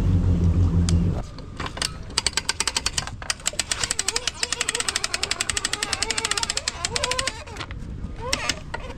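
A fishing reel being wound in, its clicks coming fast and even, about ten a second, for around five seconds. A low motor hum stops about a second in.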